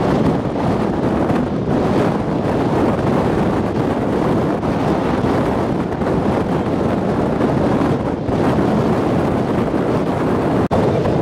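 Wind buffeting the microphone, a steady rumbling rush that dips briefly near the end.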